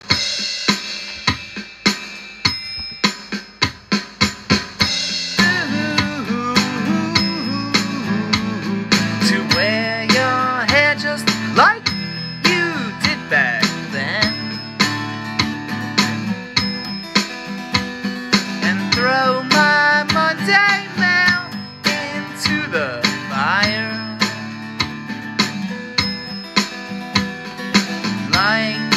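Instrumental song intro: a drum beat alone for the first few seconds, then bass and guitar come in, the guitar playing notes that slide up and down in pitch over a steady rhythm.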